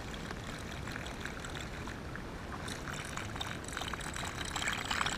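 Steady wind rumble on the microphone with water lapping against a kayak. From about three seconds in there is a run of small clicks and ticks.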